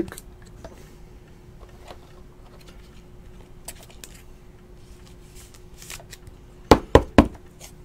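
Faint rustling and ticking of a trading card being handled and slid into a clear rigid plastic card holder, over a faint steady hum. About seven seconds in come three sharp clacks in quick succession.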